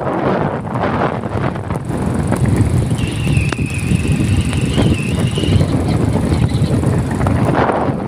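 Wind buffeting the phone's microphone in a rainstorm: a loud, uneven low rumble that surges and eases, with a faint wavering whistle for a couple of seconds in the middle.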